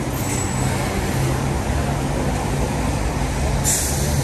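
City street traffic on a wet road: car engines running and tyres passing at an intersection, a steady low hum, with a brief sharp hiss near the end.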